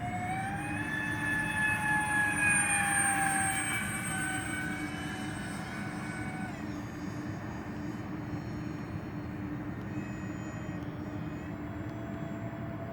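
Electric ducted fan units of a large radio-controlled Airbus A330 model jetliner spooling up to a whine and holding it for several seconds. They are throttled back sharply about six and a half seconds in, to a lower whine that edges up again near the end.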